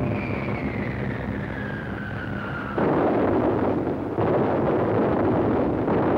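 Aerial bombs whistling down, one long whistle falling in pitch, then a sudden explosion a little under three seconds in and another about a second later, followed by continuing rumbling blasts.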